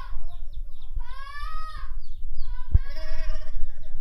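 Several long, high-pitched wailing cries from distressed people, each rising and falling, over a steady low rumble, with a single sharp knock about three quarters of the way through.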